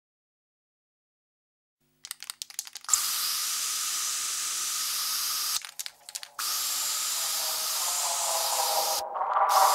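After about two seconds of silence, a brief rattle, then an aerosol spray-paint can spraying in a long steady hiss, broken once by a short pause. Pitched musical tones come in near the end.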